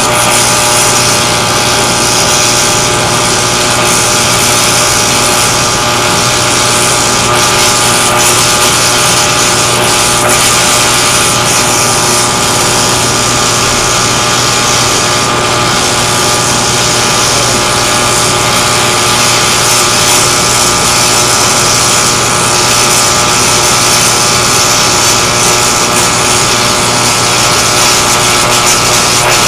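Welding equipment running continuously: a steady loud hiss over an even machine hum with several fixed tones, unbroken throughout.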